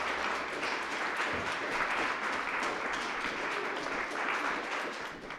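Audience applauding, the clapping ending abruptly near the end.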